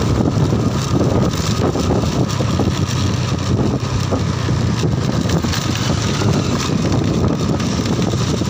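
Steady wind buffeting the microphone on a moving Honda motor scooter, over the even hum of its small engine and its tyres on the road.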